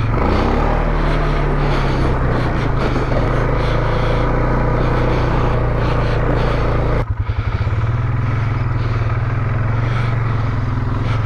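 Polaris Sportsman 570 ATV's single-cylinder engine, throttled up hard and pulling loud as the quad is driven across rough ground. About seven seconds in the sound changes abruptly to the engine running at a steadier, pulsing throttle, heard from on the ATV.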